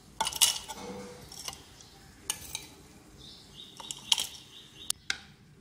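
Fried brown onions being dropped into the plastic bowl of a small electric food chopper, with scattered light clicks and clatter against the plastic.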